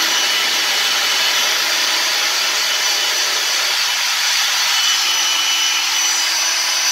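Hilti DD 160 diamond core drilling rig's motor running free at steady speed, an even whine with a high tone above it. It is running again after a broken wire in its power cable was cut out; it had only refused to start because its restart protection blocks starting when the switch is already on as power comes on.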